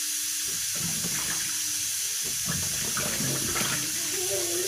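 Water running and splashing in a kitchen sink as tomatoes are washed by hand.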